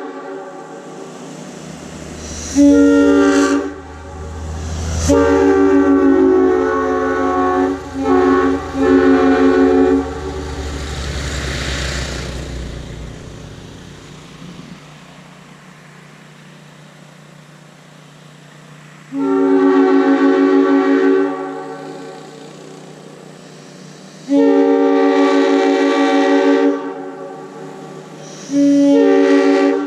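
Two Nathan M5 five-chime air horns, a parts-built one with a 5/16 orifice and an ex-Western Maryland one with a 3/16 orifice, blown together on compressed air in five blasts of a multi-note chord. The first is short, the second long with two brief breaks, and the last three are separated by pauses, recreating the dual horns of Western Maryland Alco FA freight locomotives. A low rumble sounds under the first half.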